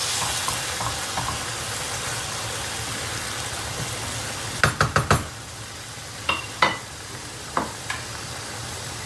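Tomato, pepper and minced-beef sauce sizzling in a frying pan while a wooden spoon stirs through it. About halfway through come a few short knocks and clinks of the spoon against the pan.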